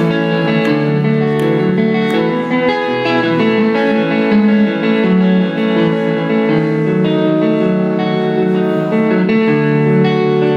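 Live rock music led by electric guitar playing held, ringing notes, an instrumental stretch with no singing.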